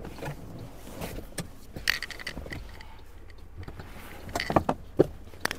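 Scattered clicks, knocks and scraping as an SUV's rear seatback is folded down by hand to extend the boot, with a cluster of knocks near the end.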